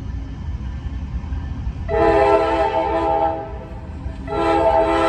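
Approaching diesel freight locomotive's air horn sounding a chord of several notes twice: a blast of about a second and a half starting about two seconds in, then a longer one starting near the end, over a low rumble.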